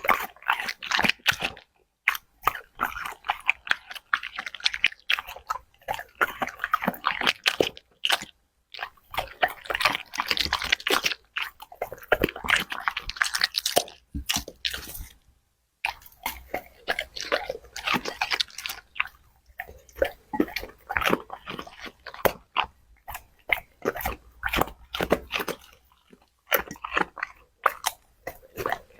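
A dog chewing crunchy food with its mouth close to the microphone: rapid runs of crisp crunching bites, broken by brief pauses.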